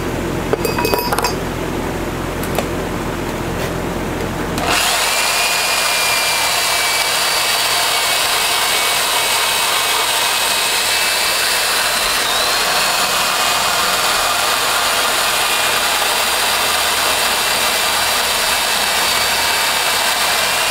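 Power drill spinning a grinding stone in the centre hole of a metal washer clamped in a vise, grinding the hole out to fit over an exhaust pipe: a steady, high-pitched grinding noise with a faint whine that starts about five seconds in. Before it, a low hum and a few light clinks.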